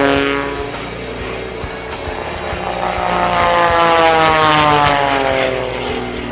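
MX2 aerobatic monoplane's propeller engine at high power: its drone falls in pitch at the start, then swells to its loudest about four seconds in and falls in pitch again as the plane goes past.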